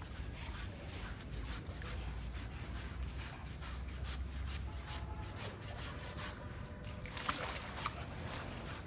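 Scrubbing strokes on an elephant's skin: a repeated rasping rub, about two or three strokes a second, with two sharper knocks near the end.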